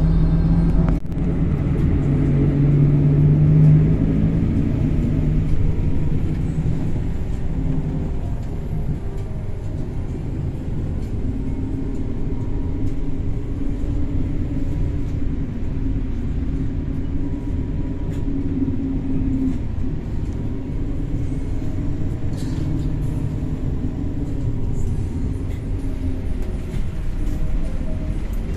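Steady low rumble of a motor vehicle running, its engine note shifting slightly in pitch.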